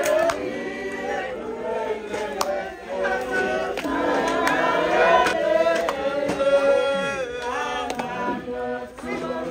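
Choir of voices singing together in harmony, with sustained, sliding notes.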